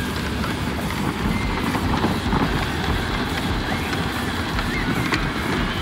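Power Wheels ride-on toy jeep, converted to remote control, driving over asphalt: a steady rumble of its hard plastic wheels and drive motors.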